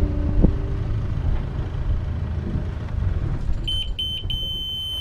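Low rumble of the sailboat's Yanmar diesel as it is shut down. Then the engine panel's alarm buzzer sounds: two short high beeps about three and a half seconds in, followed by one long steady beep. This is the usual warning when the engine stops with the key still on.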